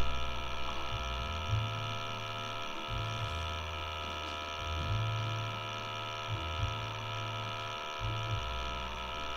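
Steady electrical hum and whine with a low buzz that shifts and breaks off every second or so.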